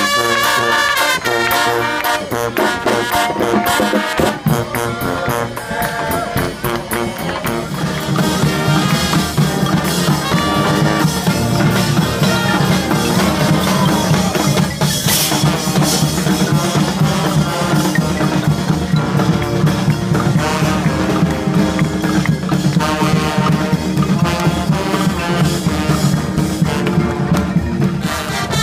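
Street brass band playing live: trombones and trumpets over drums. A strong low bass part comes in and the music grows fuller several seconds in.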